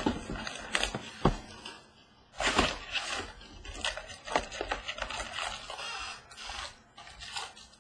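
Crinkling plastic wrapper and a cardboard trading-card box being torn open by hand, with packs pulled out and set down on a wooden table in irregular rustles, scrapes and clicks.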